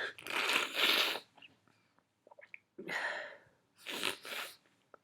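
A person sniffling and breathing noisily through the nose: one rush of about a second near the start, then two shorter sniffs about three and four seconds in.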